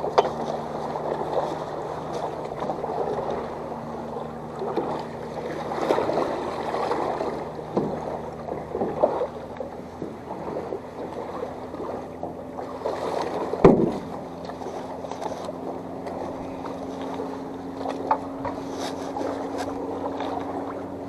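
A small motor hums steadily at a low pitch, the hum stepping up slightly about two-thirds of the way through, over a wash of wind and water noise. Scattered light knocks and clicks, with one loud knock around the middle.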